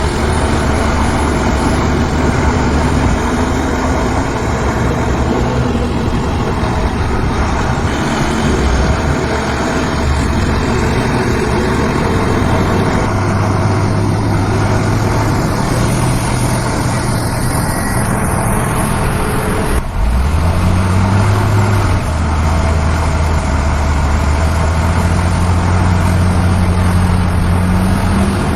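Heavy diesel engines of earthmoving machinery running under load, with a steady low drone; about twenty seconds in the sound briefly dips and one engine revs up, its pitch rising.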